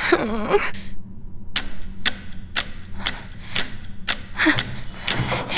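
Long-handled plastic scrubbing brush scrubbing a tiled bathroom floor in quick, even strokes, about three a second.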